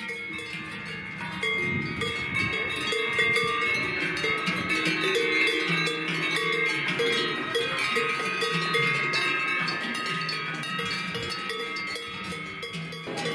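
Many cowbells worn by a herd of grazing cattle, ringing and clanking irregularly, with several bell pitches overlapping; it grows louder about a second and a half in.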